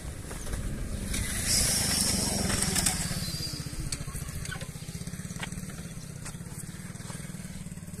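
A small engine idling steadily with an even low pulse. A louder hissing noise comes over it about one and a half to three seconds in.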